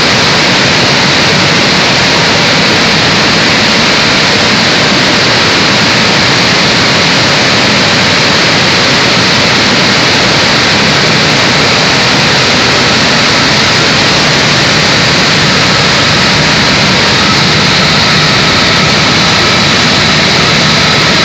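Rice milling plant machinery running, a loud steady mechanical din with a faint high whine that does not change.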